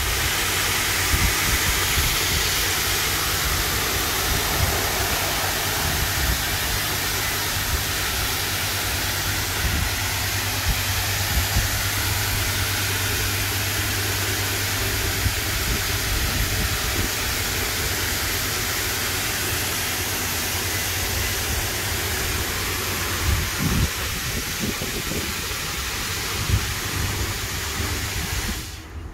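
Automatic car-wash machine running: a steady hiss of high-pressure water spray over the low hum of its motors and pumps.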